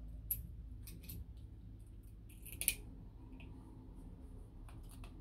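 Light clicks and rustling from a parcel's wrapping being handled and undone, with one sharper click about two and a half seconds in.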